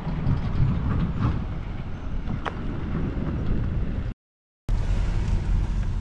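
Steady low rumble of wind buffeting the microphone on open water, broken by about half a second of dead silence a little after four seconds in, where the recording cuts.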